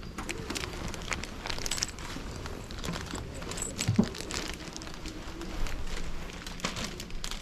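Crinkling and rustling with scattered light clicks, and a single dull thump about four seconds in.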